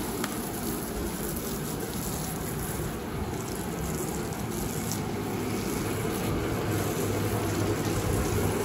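Pressure washer running steadily, its water jet spraying onto a car's body, with a low hum that grows a little louder in the second half.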